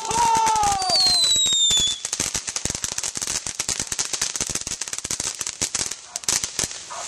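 A string of firecrackers popping rapidly in a dense crackle, loudest over the first two seconds and then continuing as quicker, sparser pops. Falling tones sound over the first two seconds.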